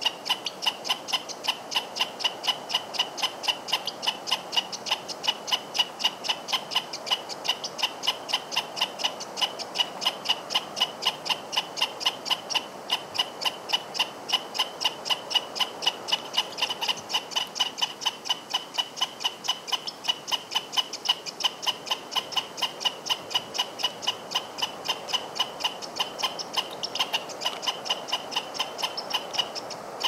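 Squirrel barking: a long, unbroken run of short, sharp, high calls, evenly spaced at roughly four or five a second.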